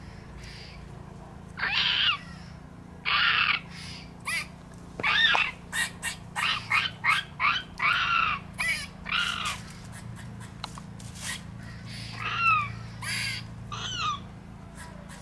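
A squirrel calling: a long series of short, arching alarm calls that starts about one and a half seconds in, comes quickly in the middle and thins out near the end.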